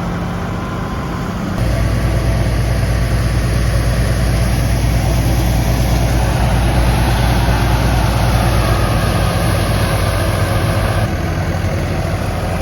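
Tractor engine driving a wheat thresher, running steadily with a deep hum. It grows louder and heavier about one and a half seconds in and eases back slightly near the end.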